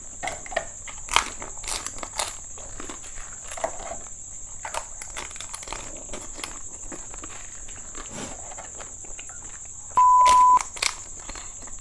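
Close-miked eating of golgappa (pani puri): crisp puri shells cracking and crunching in the mouth, with scattered small clicks and smacks, over a faint steady high-pitched whine. About ten seconds in, a loud steady beep lasts about half a second.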